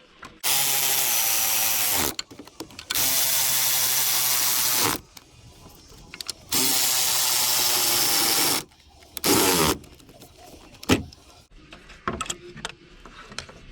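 Cordless power drill/driver running in three steady bursts of about two seconds each, driving bolts back in, then a short fourth burst that winds down in pitch, followed by a few light clicks of tools being handled.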